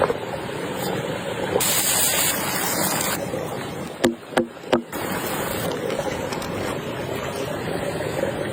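Steady rushing noise of water and wind, broken by three or four sharp clicks about four to five seconds in.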